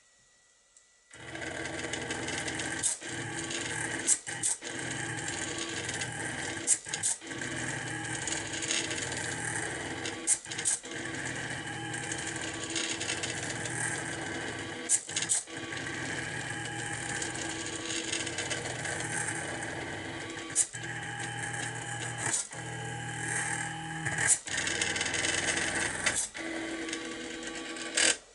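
Mini CNC pen plotter built from DVD-drive mechanisms running a drawing job: its small stepper motors buzz and whine in shifting tones as they move the pen carriage and the paper bed, broken now and then by brief clicks and short pauses. It starts about a second in and stops just before the end.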